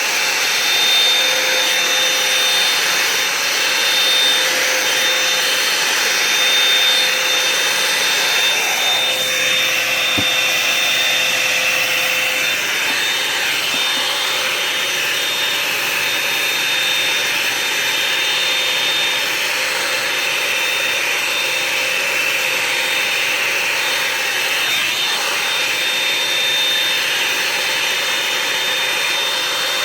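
Revlon One-Step Hair Dryer and Volumizer hot-air brush running steadily: a loud whir of blowing air with a motor whine. The whine shifts in pitch about nine seconds in and again about twelve seconds in.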